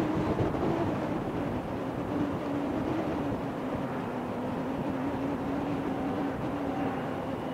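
Distant diesel engine running steadily, a low, even hum that dips slightly in pitch about half a second in.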